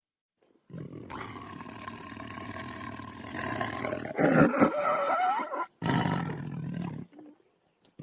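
Tiger roaring: a low, rumbling call begins about a second in, swells into a louder roar around the middle, breaks off briefly, then comes back once more and stops about a second before the end.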